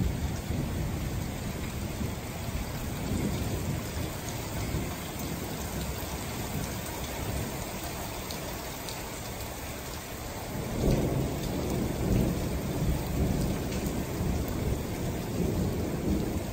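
Thunderstorm: steady rain with rolling thunder. A loud rumble fades at the start, and a second long rumble rolls in about eleven seconds in, swelling several times.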